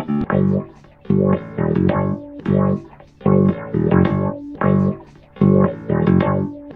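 Instrumental music playing in short, rhythmic phrases of steady notes, each phrase followed by a brief pause.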